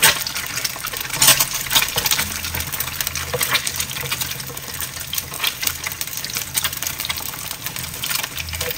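Eggs frying in hot oil in a nonstick pan: a steady sizzle full of sharp crackles and pops. A spatula scrapes and pushes the eggs across the pan.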